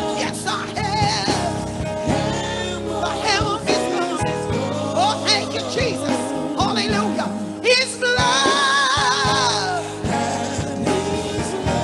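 Live gospel music: singers over electric keyboard, bass guitar and drums.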